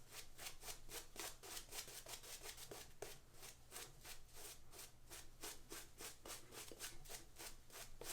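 Synthetic shaving brush working shaving soap lather in quick, even swishing strokes, about five a second.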